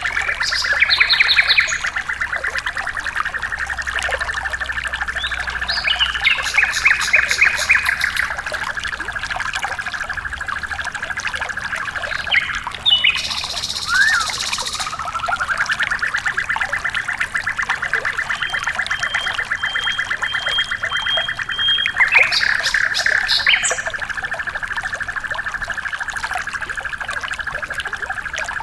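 Songbird calls over trickling water: a steady, fast pulsing trill carries on almost throughout with a short break near the middle, while brief bright call phrases come in three times. A thin, even whistle is held for a few seconds in the second half.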